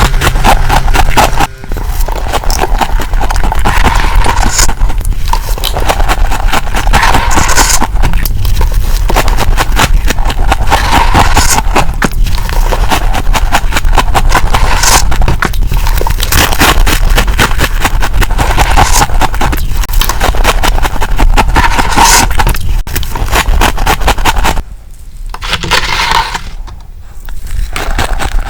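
Freezer frost being chewed: a loud, dense crunching crackle that swells every couple of seconds. It drops away briefly about a second and a half in and goes quieter for a few seconds near the end.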